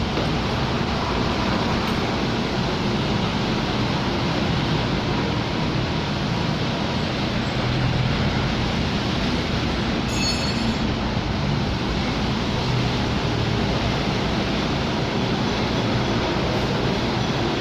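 Honda Accord 3.5-litre V6 engine running steadily, heard close up as a loud, even rumble, with a brief high chirp about ten seconds in.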